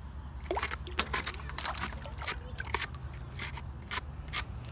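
Nails and magnetic rock grit being scraped and pulled off the face of a magnet-fishing magnet by hand: a quick, irregular run of sharp clicks, crunches and scrapes.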